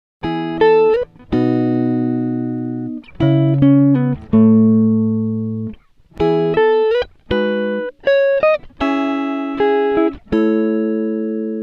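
Background music: a plucked guitar playing short phrases of ringing notes that die away, with brief gaps between phrases.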